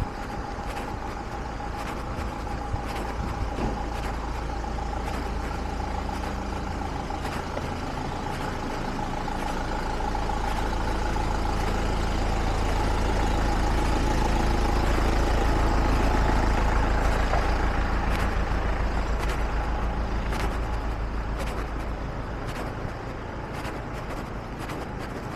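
A box truck's engine running. Its low rumble grows louder and then fades as it is passed, over a steady high whine.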